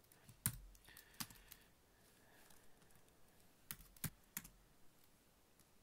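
Faint, scattered keystrokes on a computer keyboard as a terminal command is typed, single taps spread out with short pauses between them.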